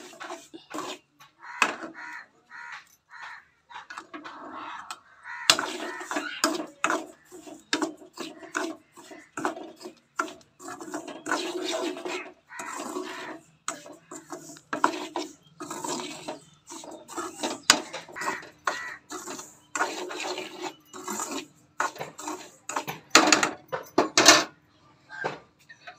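A steel spoon stirring a thick mixture in an aluminium kadai, scraping and clinking against the pan in irregular strokes.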